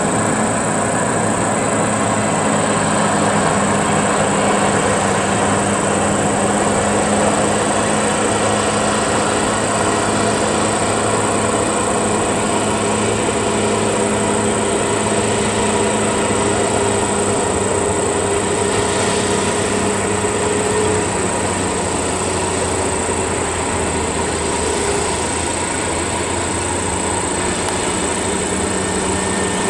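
Diesel engine of a loaded Scania coal dump truck running under load as it drives by on a gravel haul road, a steady heavy hum mixed with tyre and body noise. Its engine note shifts about two-thirds of the way in. A steady high-pitched whine sits over it throughout.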